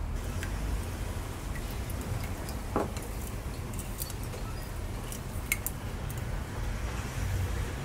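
Ceramic spoon stirring sauce in a ceramic bowl, with scattered light clinks against the bowl, over a steady low rumble.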